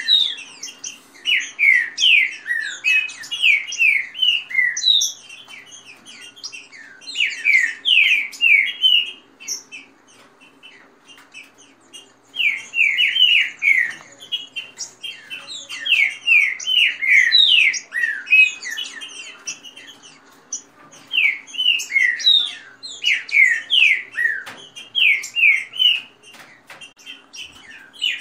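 Green-winged saltators (trinca-ferro) in a singing contest, each phrase a rapid run of loud, quick, falling whistled notes lasting a few seconds, with short pauses between phrases.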